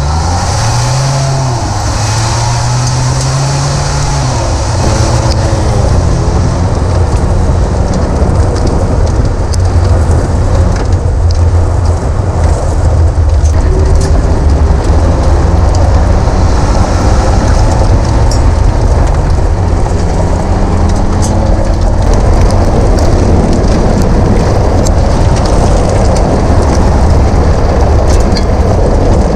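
Ford Bronco driving hard on a gravel road, heard from under the body: loud tyre and road roar with scattered ticks of stones thrown up against the underside and mud flaps. The engine rises in pitch through gear changes over the first few seconds and climbs again about twenty seconds in.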